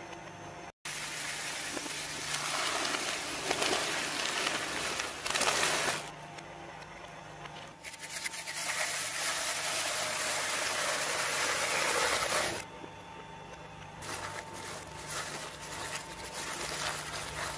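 Twin-shaft shredder running, its interlocking cutter discs grinding and crunching through material over a steady motor hum. Two long loud stretches of shredding, the second cutting off sharply about two-thirds of the way through, with quieter running between and after.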